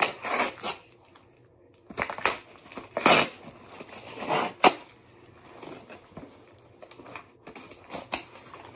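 A cardboard book mailer being torn open by hand: a run of separate rips and crinkles with short pauses between, the sharpest about four and a half seconds in.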